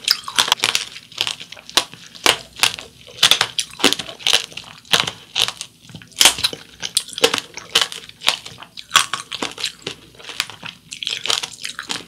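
Hard sugar-glass coating of candied mandarin orange (tanghulu) crunching and cracking as it is chewed: a rapid, irregular run of sharp crunches, several a second, with glassy clicks.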